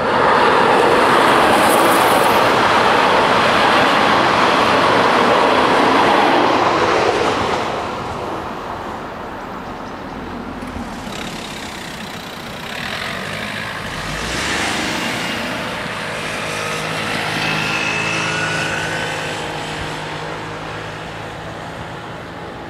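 A TER regional train passing over a level crossing, a loud rush of wheel and rail noise that falls away after about seven seconds. Then quieter road-vehicle engine noise with rising whines, as a waiting motorcycle and a car move off once the barriers lift.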